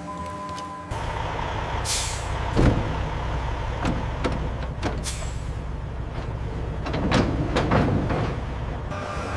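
Heavy truck engine running with a steady low rumble, with several short hisses of air and a few knocks over it.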